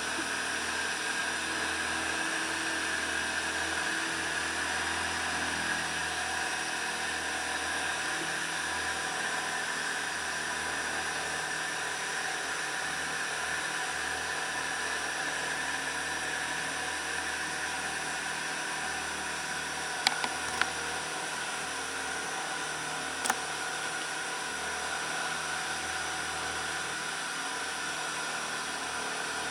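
Outrigger boat's engine running steadily under way, with water rushing past the hull. A few short sharp knocks about 20 and 23 seconds in.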